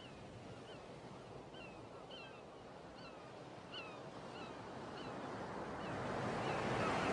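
Surf washing on a shore, growing steadily louder. Over it come short, falling bird calls, one or two a second.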